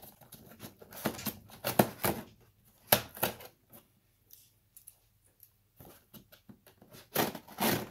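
Scissors slitting the packing tape on a cardboard box, in irregular scraping strokes. They are loudest from about a second to three seconds in and again near the end, with quieter strokes in between.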